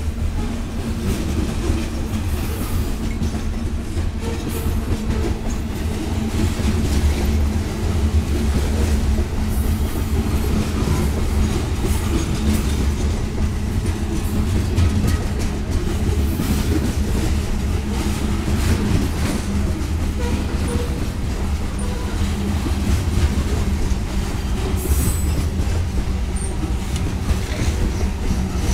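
Covered hopper cars of a CSX grain train rolling past: a steady low rumble with wheels clicking over the rail joints.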